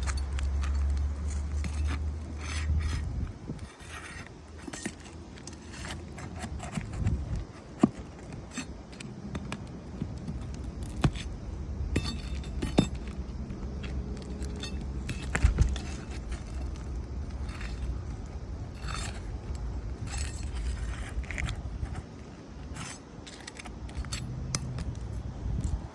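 A metal hand tool scraping and clinking against asphalt shingles in irregular sharp knocks and scrapes as the sealed tabs are broken loose and roofing nails are pried out to free a damaged shingle. A low rumble sits under the first three seconds.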